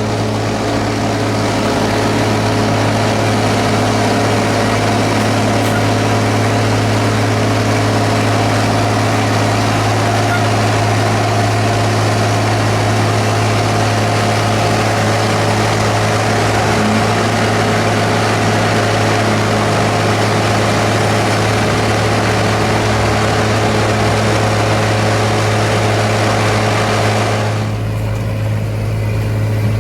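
John Deere 4440's six-cylinder turbo diesel running steadily under load, driving a forage harvester that is chopping corn: a deep, even engine drone under a dense mechanical hiss. Near the end the hiss drops away suddenly, leaving the engine drone.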